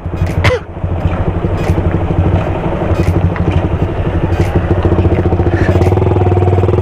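Motorcycle engine running steadily while riding. About half a second in, a short sharp sound cuts through.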